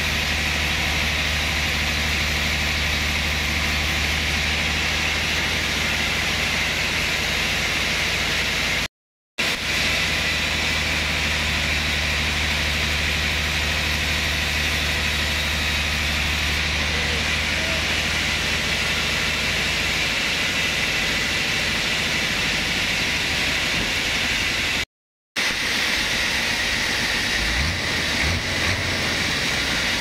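Large band sawmill running steadily as its blade rips a thick trembesi (rain tree) slab fed on the carriage. The low machine hum eases about two-thirds through, and there are a few low knocks near the end.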